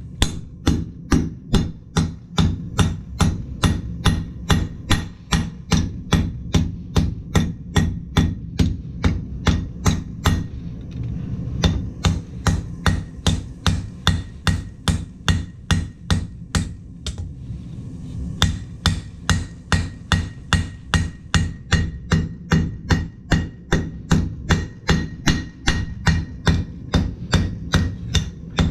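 Blacksmith's hammer striking hot steel on an anvil in a fast, even rhythm of about two and a half blows a second, drawing the bar out. There are two brief lulls, around ten and seventeen seconds in, over a steady low hum.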